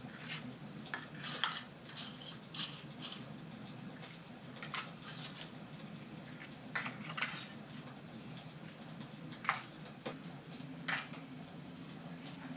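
Paper cupcake cases crinkling and tapping as they are pulled off a stack and dropped one by one into a metal six-cup muffin tin, a scatter of short light clicks over a low steady hum.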